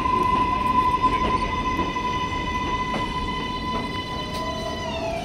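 Kawasaki R188 subway train running past on elevated track: a steady, high electric whine from its propulsion, over a continuous rumble of wheels on rail with a few clicks. Near the end the whine glides down in pitch.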